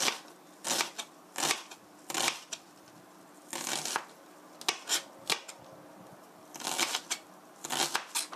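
Kitchen knife mincing half an onion on a plastic cutting board: irregular clusters of quick chopping strokes with short pauses between them.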